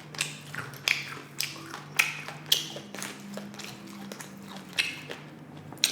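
Close-miked crunching of tortilla chips being chewed, with a sharp crunch about every half second over a faint low hum.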